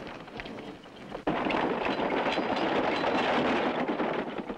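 Horse-drawn wooden wagon rattling and clattering as it rolls, the loud noise starting abruptly about a second in and dying away near the end.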